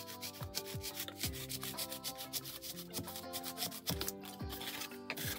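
Snap-off utility knife blade cutting through a styrofoam block, a rapid scratchy crunching as the blade is drawn along a curved line.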